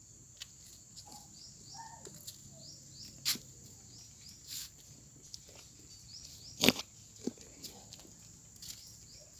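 Outdoor goat-yard ambience: a steady high-pitched hum, runs of short chirps, and scattered clicks and knocks. The loudest is a sharp knock about two-thirds of the way through.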